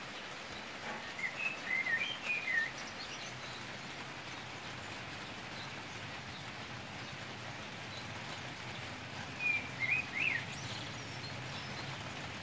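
Steady hiss of a rain shower, with a songbird singing two short warbling phrases, one about a second in and another about two seconds before the end.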